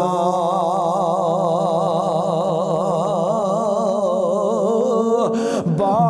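A man singing a devotional Sufi kalam in Punjabi, holding one long, wavering melismatic note over a steady low drone. The line breaks briefly about five seconds in before the singing resumes.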